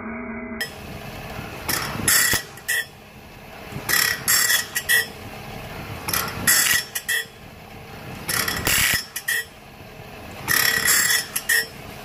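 Armstrong No. 4 saw grinder working a band saw blade: the grinder runs steadily while its abrasive wheel drops into a tooth gullet and grinds it about every two seconds, five loud grinding passes in all.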